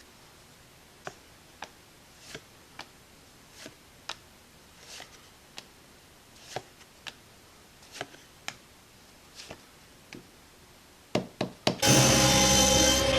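Scattered small clicks, taps and rustles of objects being handled, then music starts loudly near the end.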